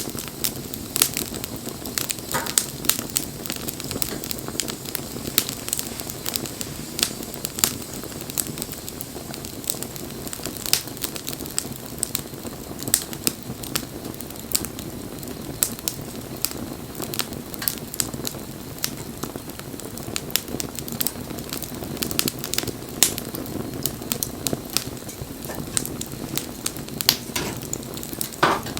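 Wood fire crackling, with frequent irregular sharp pops and snaps of burning wood over a steady low rush of flame.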